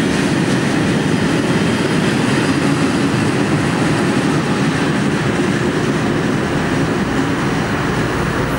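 Freight train of tank wagons passing at speed close by: a loud, steady rumble of wheels on rail that eases slightly over the last couple of seconds as the last wagons go by, then cuts off abruptly.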